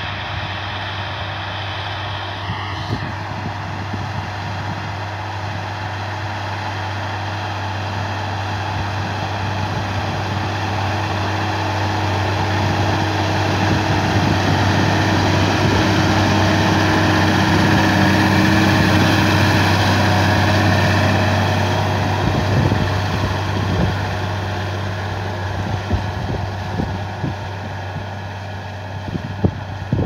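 Massey Ferguson 6180 tractor's diesel engine running steadily under load while pulling a plough through the soil, growing louder as it passes close about halfway through and fading as it moves off.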